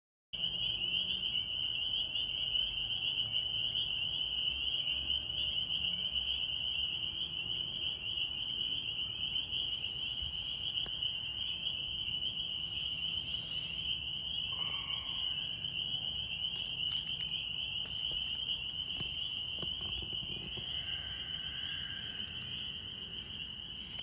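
A steady, high-pitched chorus of small calling animals, an unbroken trilling that cuts in suddenly at the start, over a low background rumble.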